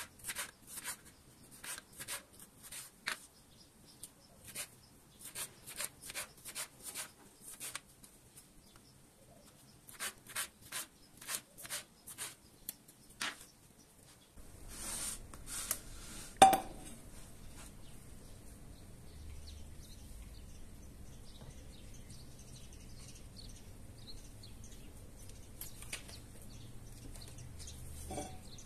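A kitchen knife slicing bell pepper into strips on a plastic cutting board: a run of quick, irregular cuts, each blade stroke tapping the board. Later comes one loud metallic clank with a short ring, the loudest sound, under a low steady hum.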